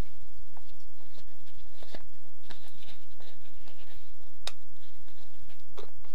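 Handling noise from a folding rescue knife and its nylon sheath: scattered rustles and small clicks as the knife is slipped into the sheath, with one sharp click about four and a half seconds in, over a steady low hum.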